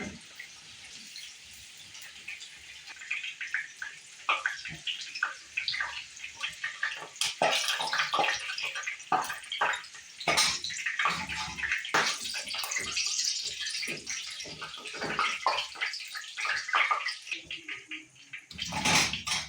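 Food frying in hot oil, with steady crackling and irregular popping and spattering.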